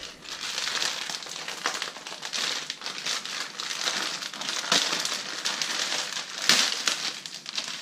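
Clear plastic wrapping of a trading-card starter pack crinkling and crackling as hands pull and tear it open, with a louder crackle about six and a half seconds in.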